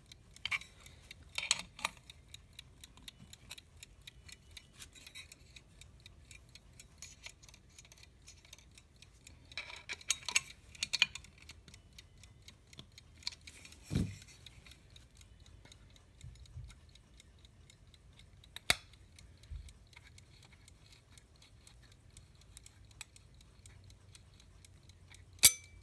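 Vintage US Time Waterbury alarm clock movement ticking steadily, with occasional clicks and clatters of metal parts being handled; the sharpest knock comes near the end.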